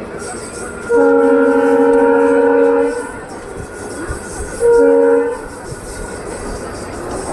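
EMD-style multi-tone horn of a WAP-4 electric locomotive, sounded in one long blast of about two seconds and then a short toot, over the steady noise of the train running.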